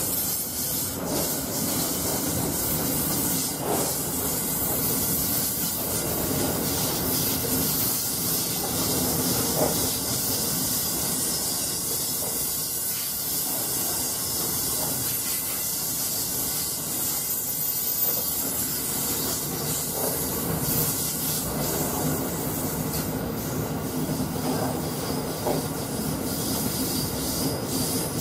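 Loaded narrow-gauge grain hopper wagons rolling past: a steady rumble and high hiss of steel wheels on rail, with a few knocks scattered through.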